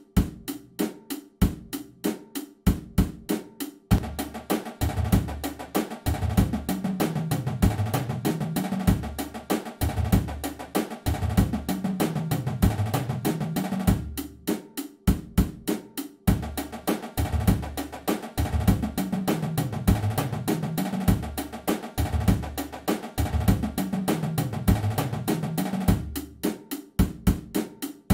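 Marching drumline of snare, tenors and five tuned bass drums playing a warm-up: steady snare and tenor sticking with rolls over split bass drum runs that step down and back up in pitch. Sparse sharp count-in clicks come before each pass: at the start, about halfway, and near the end.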